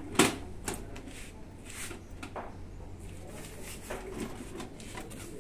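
A few sharp clicks and knocks of plastic parts being handled on a folding portable camping toilet, the loudest just after the start.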